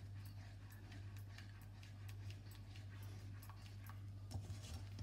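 Faint, irregular light clicks and taps, several a second, from a silicone spatula stirring paneer cubes through thickening sugar syrup in a nonstick pan, over a low steady hum.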